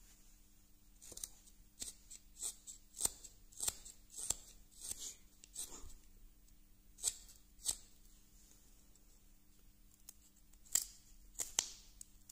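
Carving knife slicing thin shavings off a block of pale wood in a series of short, crisp cuts, about one every half second, with a pause midway and a few louder cuts near the end.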